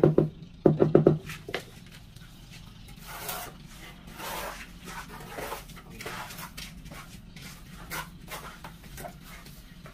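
A short run of quick mallet taps on a floor tile about a second in, bedding it into the mortar. Then quieter, irregular scraping strokes of a trowel in wet mortar.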